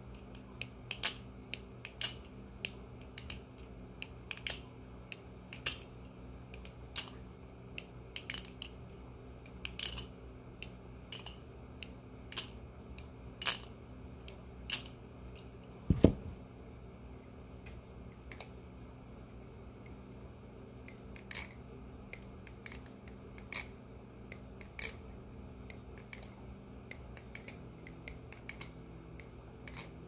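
Balisong (butterfly knife) flipping: the handles and blade clack together in sharp clicks, about one a second at first and in quick clusters later. About halfway through a knife is set down on the desk with a heavier knock, the loudest sound.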